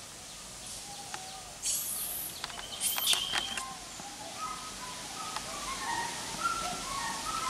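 Birds chirping in short, flat-pitched notes that begin about four seconds in and keep repeating. A brief high hissing rush and a few sharp clicks come about two to three seconds in.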